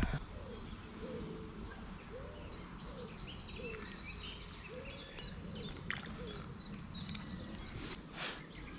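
Birds singing and chirping in woodland by a lake, with a low call repeating every half second or so through the middle, over a steady outdoor hush. A single short knock about eight seconds in.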